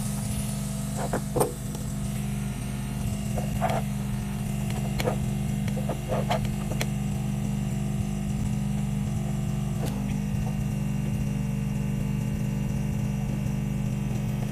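A small electric motor-driven tool hums steadily, with scattered small clicks and taps on the circuit board.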